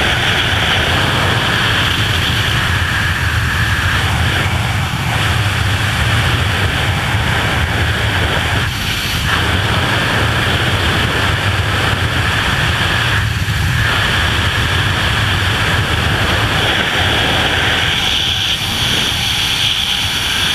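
Loud, steady rush of freefall wind over a head-mounted camera during wingsuit flight at over 100 mph, with brief dips about nine and thirteen seconds in.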